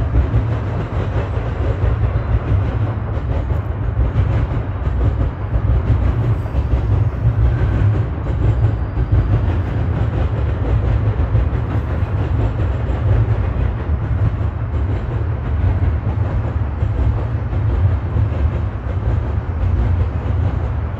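Double-stack intermodal well cars rolling past: a steady low rumble of steel wheels on rail.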